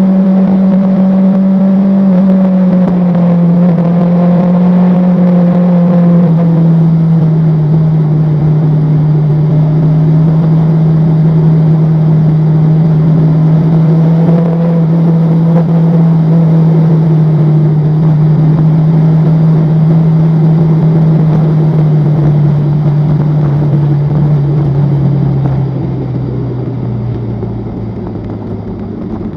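A vehicle's engine or drive, recorded on board during a ride, running with a strong steady hum that slowly falls in pitch, then drops lower and gets quieter over the last few seconds as the vehicle slows.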